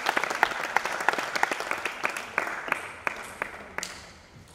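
Applause from a small group of spectators: dense clapping at first that thins out and dies away near the end.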